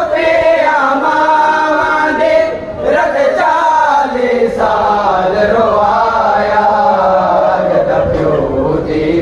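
A group of men chanting a noha together without instruments, in long drawn-out phrases that glide in pitch.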